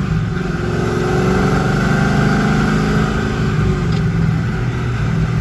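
C5 Corvette's V8 engine running steadily while the car is driven, with low road rumble.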